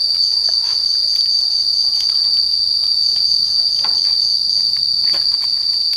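Steady, high-pitched insect chorus droning without a break, with a few faint clicks over it.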